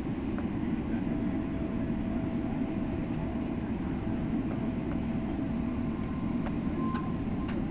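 Steady low rumble inside an airliner's cabin while it taxis: jet engines at idle thrust and the wheels rolling on the taxiway, with a faint steady hum over it.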